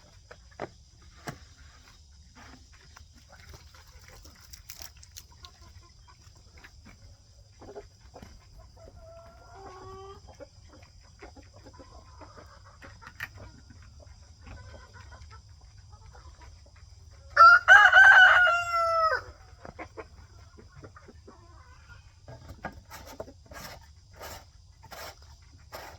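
A rooster crows once, about two seconds in all, the call dropping in pitch at its end, a little past the middle. Faint hen clucks and light ticking sound around it.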